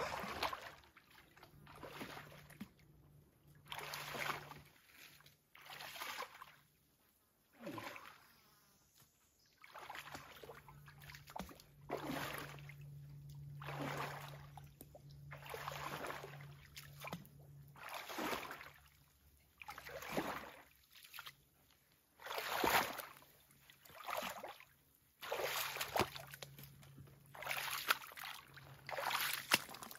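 Legs wading through thigh-deep swamp water, a sloshing splash with each stride about every one and a half to two seconds.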